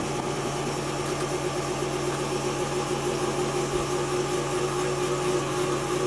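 Electric home candyfloss machine running, its motor and spinning sugar head giving a steady hum.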